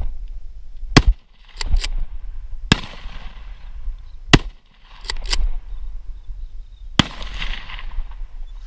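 A close-up string of shotgun shots and sharp clacks from the gun, eight sudden reports over about six seconds. The two loudest come about a second in and about four seconds in.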